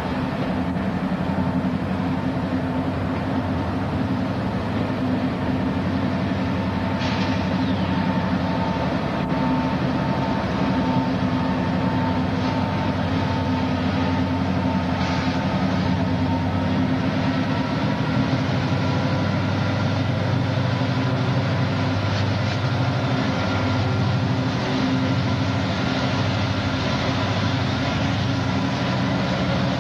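Diesel locomotives leading a Union Pacific double-stack container train, their engines running steadily and growing louder as the units draw close in the second half, with a faint steady whine above the engine sound.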